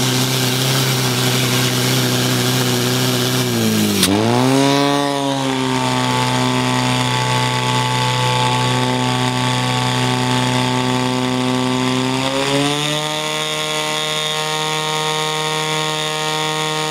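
Portable fire pump engine running hard at high revs. Its pitch dips and climbs back about four seconds in, then rises a step near the end.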